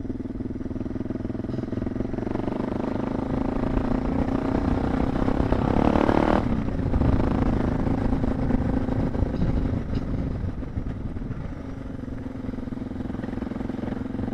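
Suzuki DR650's single-cylinder four-stroke engine pulling under load on a steep dirt climb. The revs build to a peak about six seconds in, then ease back to a steadier run.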